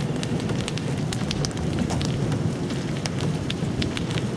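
Storm wind rumbling on the microphone, with scattered sharp ticks of raindrops striking close by, several a second at irregular intervals.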